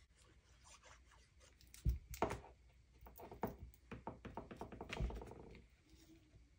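Hands handling and pressing small pieces of paper and cardstock on a glass craft mat: faint rubbing and rustling with quick little clicks. A dull thunk comes about two seconds in and another about five seconds in.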